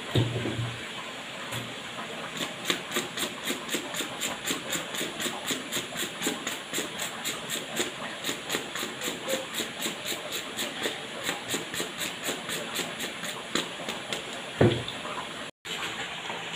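A run of short, sharp, evenly spaced strokes, about four a second, from kitchen food preparation, starting about two seconds in and stopping shortly before a louder knock near the end, over a steady hiss.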